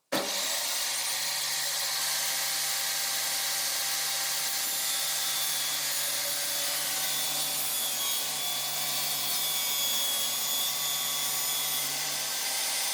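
Electric power saw cutting a notch in a waterproof plastic-core laminate floor plank, running at a steady pitch and winding down near the end.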